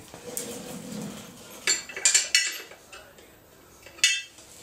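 Hand tools clinking: a steel socket, extension and ratchet being handled and set onto the outdrive's housing bolts. A few sharp metallic clinks with a short ring, clustered about two seconds in and once more near the end.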